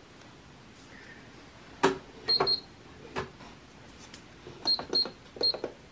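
Gel-polish nail curing lamp beeping: five short high beeps, two close together a little over two seconds in and three more near the end, among light clicks and knocks as the nail tip is handled at the lamp.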